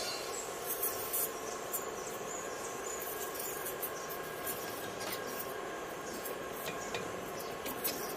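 Gas welding torch flame hissing steadily while welding a cast aluminium alloy part, with irregular small crackles and pops.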